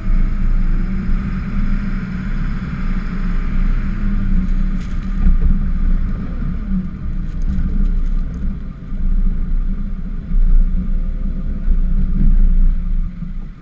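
Ford F-550 plow truck's engine running steadily under load as the truck pushes snow, heard close up from the hood, with a low rumble throughout. A few short knocks and rattles come about five seconds in and again around seven to eight seconds in.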